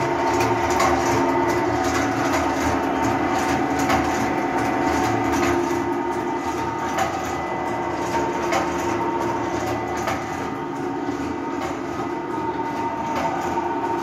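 A liquid filling and packaging line running: an 80-litre hopper's agitator, piston pumps and a vertical form-fill-seal bagger. They make a steady machine hum with a few held tones and frequent mechanical clicks and clacks.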